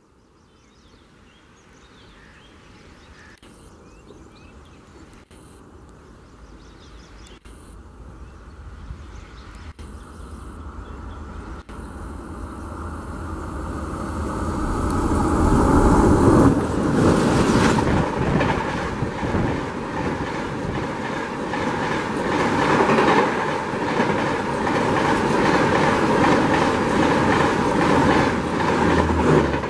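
Twin WDM-3D diesel-electric locomotives hauling an express approach, their engines' running growing steadily louder and passing about halfway through. The coaches then rush by with a fast, continuous clatter of wheels over the rails.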